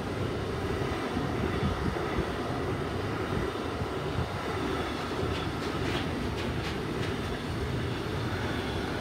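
Container freight wagons rolling steadily past on the rails: a continuous low rumble of wheels on track, with a few light clicks about five to seven seconds in.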